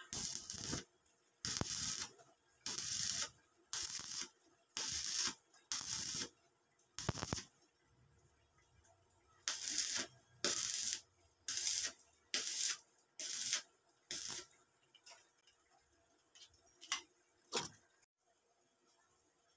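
Stick (arc) welder crackling in short bursts, about a dozen welds of under a second each, roughly one a second with a brief pause partway through, as the sheet-metal stove body is welded.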